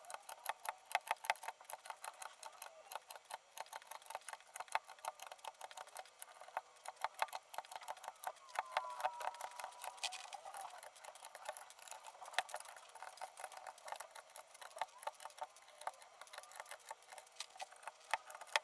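Rapid, irregular plastic clicks and clacks of keycaps being pulled off a Rosewill RK9000BL mechanical keyboard with Cherry MX switches, and of loose caps knocking together. The sound comes thin and high, as from sped-up footage.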